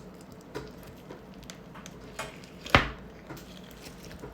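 Hands crushing and squishing crunchy snow-fizz butter slime, with scattered small crackles and one louder sharp click nearly three seconds in.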